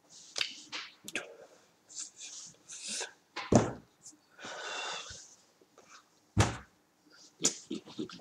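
A man talking, with many hissing consonants, in a small room. Two short thumps cut in, about three and a half and six and a half seconds in.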